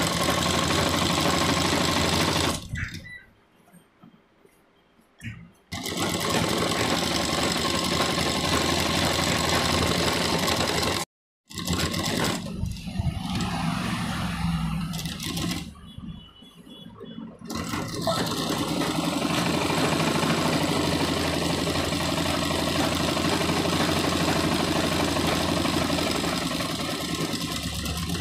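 Sewing machine running steadily as a kurta collar is stitched. It stops twice, about 3 seconds in and about 16 seconds in, and then starts again. It cuts to silence for a moment about 11 seconds in.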